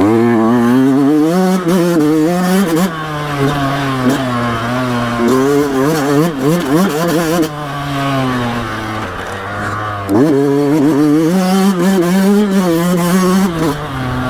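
2020 Yamaha YZ125X's two-stroke single-cylinder engine under load, revving up, holding high and falling back about three times as the throttle is opened and shut through the ruts, the pitch wavering quickly in places.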